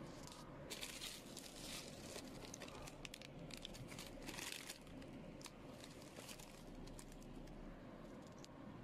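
Faint crinkling of bubble wrap and plastic film in irregular short bursts, with scattered sharp clicks, as a wrapped plastic storage rack is handled.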